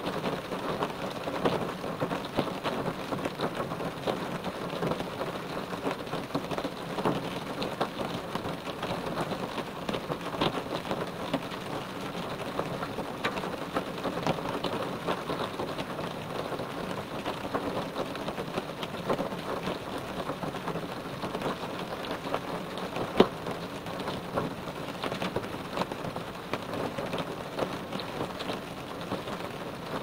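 Rain falling on a car roof: a steady, dense patter of drops hitting the metal, with one sharper drop hit about three-quarters of the way through.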